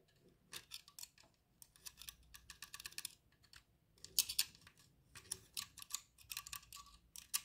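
Faint, irregular clusters of light metallic clicks and ticks from the exposed timing drive of a Fiat Ducato 3.0 engine being handled.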